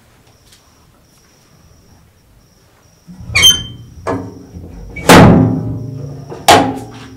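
Faint, evenly repeating high ticking, then background film music comes in suddenly about three seconds in: a low held drone struck by several loud, ringing hits.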